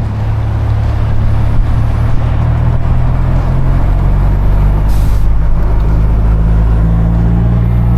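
A Ford Bronco driving, with a steady engine drone over tyre and wind noise and a brief hiss about five seconds in.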